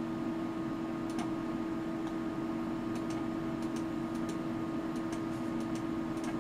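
A handful of faint computer mouse clicks, scattered a second or so apart, over a steady low hum and light hiss.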